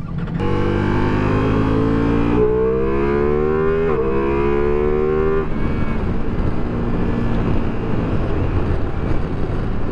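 Ducati Multistrada V4 Rally's V4 engine pulling under acceleration, its pitch climbing, dropping with a quick upshift about four seconds in, then climbing again. Past the middle the throttle eases and steady wind and road rush takes over.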